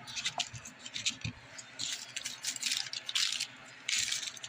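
Kitchen handling noise: small clicks and several short, hissy rustles and scrapes as rolled crescent-dough cheese rolls are set on a baking pan.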